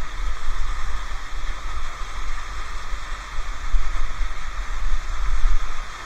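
Waterfall rushing as a steady noise close by, with uneven low buffeting of wind on the microphone.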